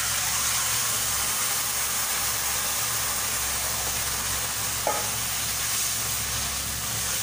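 Tamarind-and-date pulp poured into hot oil with cumin seeds and asafoetida, sizzling steadily in a non-stick frying pan as it is stirred with a spatula.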